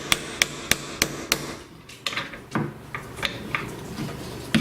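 Light hammer taps on an Allen wrench used as a punch, driving a steel pin up out of a door hinge. The sharp metallic taps come about three a second at first, then a few more spaced out.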